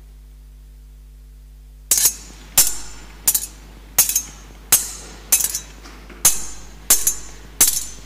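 Metal thurible (censer) swung on its chains to incense the Gospel book: about nine sharp metallic clinks, some doubled, each ringing briefly, starting about two seconds in and spaced about two-thirds of a second apart.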